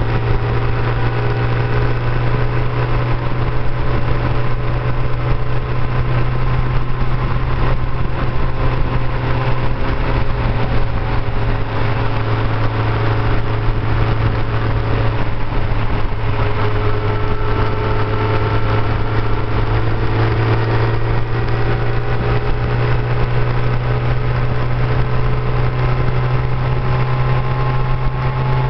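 Motorcycle engine running at a steady cruise, heard from the moving bike along with a steady rush of wind noise; its pitch drifts slowly up and down with the throttle.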